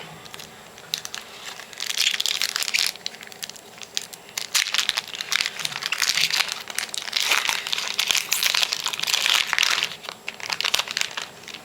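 Upper Deck hockey card pack wrappers being crinkled and crumpled in the hands as packs are opened, in irregular bursts of crackling that come and go over several seconds.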